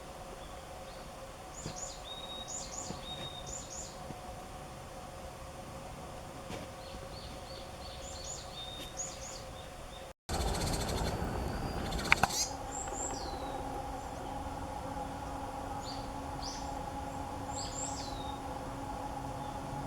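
Small wild birds calling in short, high chirps, singly and in quick runs of two to four notes. About halfway through the sound cuts out briefly, then comes about two seconds of louder rustling noise before the chirps go on.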